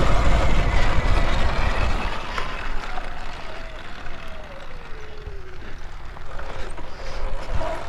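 Electric bike ridden over dirt jumps: a heavy rumble of wind on the microphone and tyres on dirt, with a thin motor whine that falls in pitch from about three to six seconds in as the bike slows.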